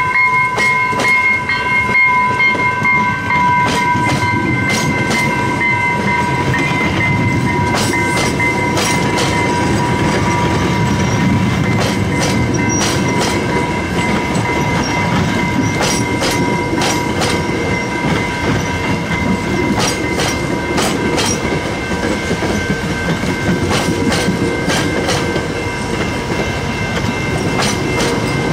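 AMT bilevel commuter train passing close by, cab car leading: a steady rumble with wheels clicking over rail joints again and again as the cars go by. A steady high ringing tone is brightest over the first few seconds and carries on fainter after that.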